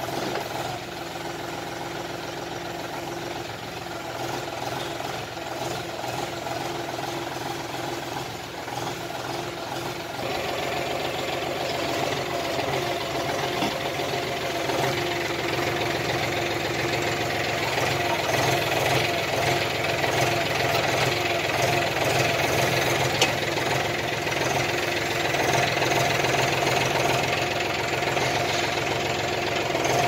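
A tractor's diesel engine running steadily, powering the hydraulics of a rear-mounted backhoe attachment as it digs soil. The sound gets louder about ten seconds in.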